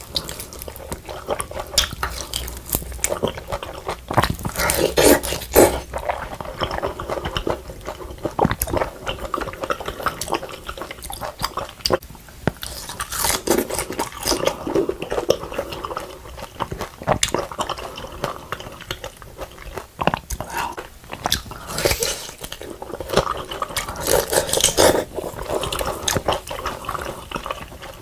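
Close-miked eating of grilled beef large intestine (daechang): biting, crunching and wet chewing, with louder bouts of crunching every few seconds.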